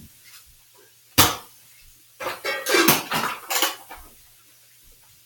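A sharp knock about a second in, then a quick run of clattering knocks and rattles, in a small room.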